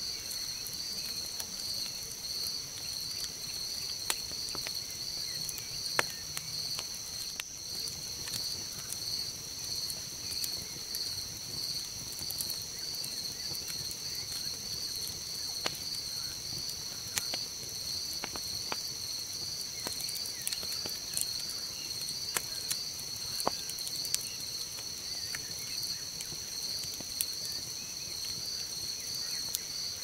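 Campfire burned down to glowing embers and small flames, giving scattered sharp crackles and pops over a steady, high-pitched chorus of night insects chirping in an even pulse.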